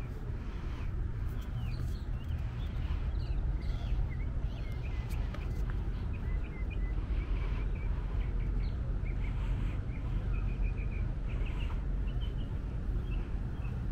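Small birds chirping in many short, repeated calls over a steady low rumble.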